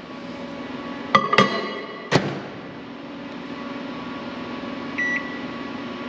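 Emerson microwave oven door being shut: a couple of sharp clicks followed by a louder knock of the latch. Near the end comes a single short keypad beep. A steady low hum runs underneath.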